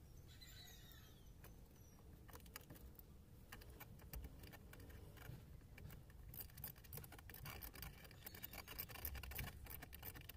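Faint clicks, taps and rustling of hands working on wiring and fittings under a car's dashboard. The clicking grows busier about six seconds in.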